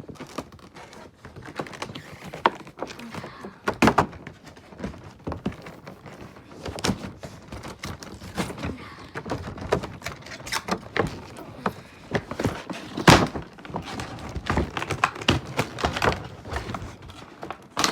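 Toy-car packaging being handled and worked open by hand: irregular knocks, taps and clicks, with two louder knocks, one about four seconds in and one past the middle.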